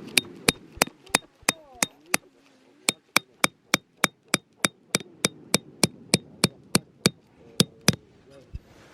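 Steady hammering, about three sharp strikes a second, each with a slight metallic ring. There is a brief pause about two seconds in, and the strikes stop about a second before the end.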